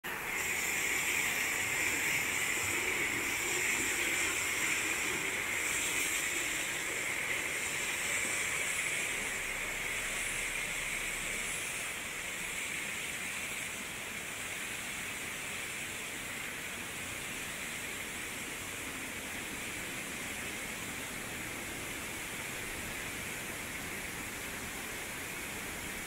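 Steady rushing of a waterfall, growing a little quieter about halfway through.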